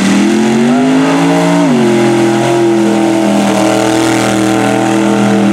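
Mud truck's engine revving under load in deep mud: the pitch climbs over the first second and a half, drops sharply, then holds steady at high revs.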